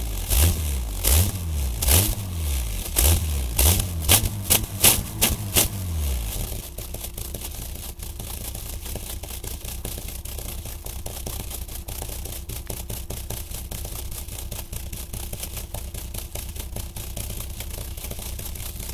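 Small pickup truck engine blipped in repeated quick revs, coming faster toward the end, its exhaust blasting through a party blowout noisemaker fitted to the tailpipe. About six seconds in it drops to a steady idle.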